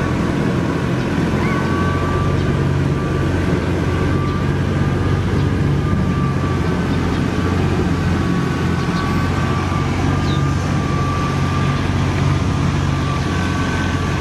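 A steady low hum of a motor or engine running, with a faint wavering whine above it.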